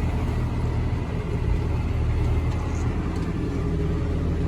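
Tractor engine running steadily while the tractor drives along, a constant low hum.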